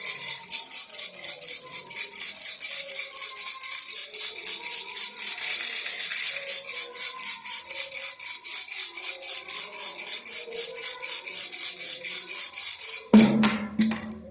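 Baby rattle shaken rapidly and evenly, about five shakes a second, a dense bright rattling with a faint tune underneath. About thirteen seconds in it ends with a louder low thump.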